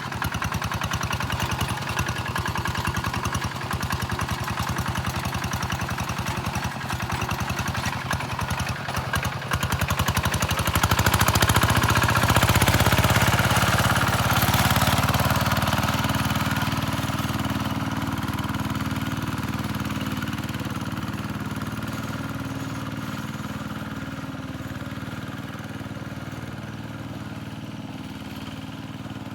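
Tractor engine running hard at full throttle, growing louder about a third of the way in and then slowly easing off and fading.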